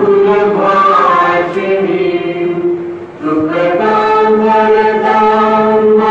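A group of voices singing a slow chant together, holding long notes, with a short break about three seconds in before the next held phrase.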